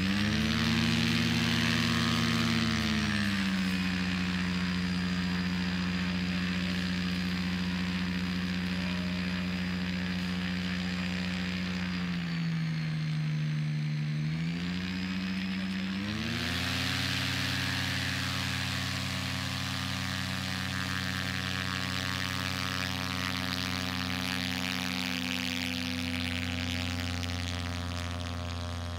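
Engine running at a steady pitch as a glider makes its ground roll. The pitch sags briefly about twelve seconds in and picks up again some four seconds later.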